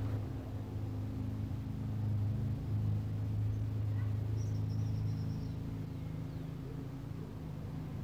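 Steady low motor hum, with a short run of faint, high bird chirps about halfway through.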